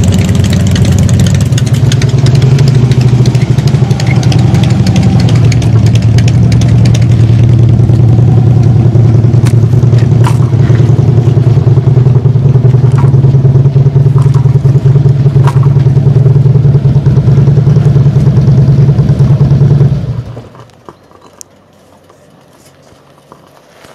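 Several cruiser motorcycle engines running together at idle, a loud, steady low rumble that stops abruptly about 20 seconds in, leaving it quiet.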